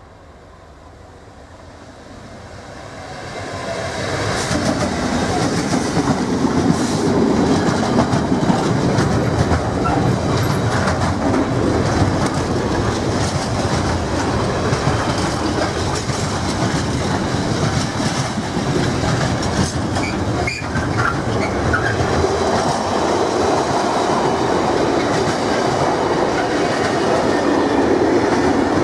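Container freight train passing close by: a diesel locomotive grows louder over the first four seconds as it approaches, then the loaded container wagons roll past with a steady clickety-clack of wheels on the rails.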